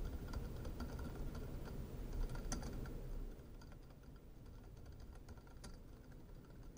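Computer keyboard typing: a quick, irregular run of faint keystrokes.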